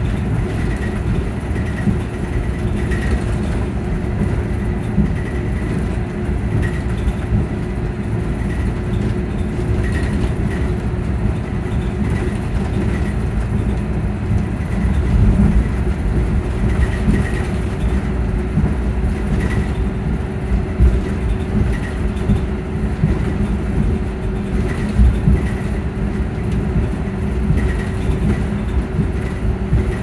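Volvo B9R coach's engine cooling fan running: a steady loud drone with a constant whine over a low rumble, heard from inside the passenger cabin.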